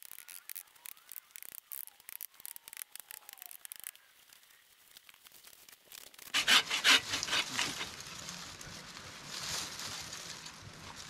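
A bow saw cutting through a branch of a dead tree: rough, rasping push-pull strokes that start about six seconds in, loudest at first. Before that comes a fast-forwarded stretch of rapid clicks and crackles as branches are snapped and cleared.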